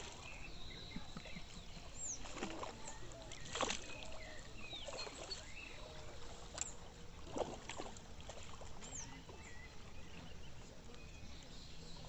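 Faint outdoor ambience: scattered short bird chirps over a low steady hum, with a few soft knocks or splashes.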